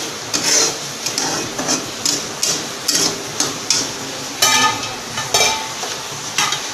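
Steel spatula stirring and scraping thick, oily tomato masala in a black kadhai, in quick repeated strokes over a light sizzle of frying. About four and a half and five and a half seconds in come two ringing metallic clanks of the spatula against the pan.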